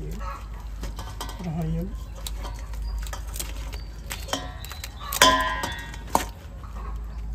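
Kitchenware clinking and clattering, with one sharp strike about five seconds in that rings on briefly like metal or glass, and a second click a second later.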